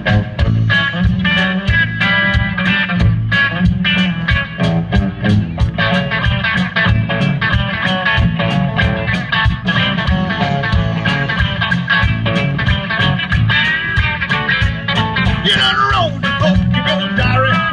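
Live rock band playing: electric guitars, bass and drums with a steady beat, with sliding lead notes near the end.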